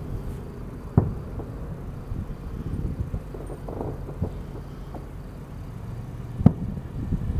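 Aerial firework shells bursting: two sharp bangs, about a second in and near the end, the later one the loudest, over a steady low rumble.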